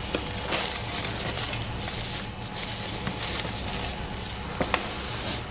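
Plastic cling film crinkling and rustling as a chicken roulade is rolled up and handled on a wooden tray, with a few light clicks and taps over a steady low hum.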